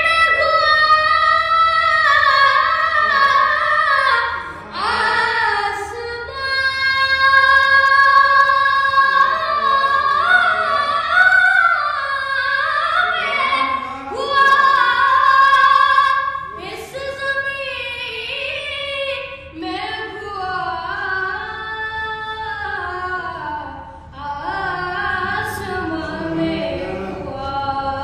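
A naat, a devotional Islamic song, sung by a solo high voice with long, ornamented held notes and no instrumental backing or beat.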